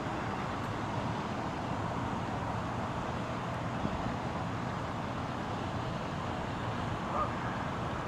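Steady urban traffic noise, an even rumble and hiss with no clear bird calls; a brief faint tone about seven seconds in.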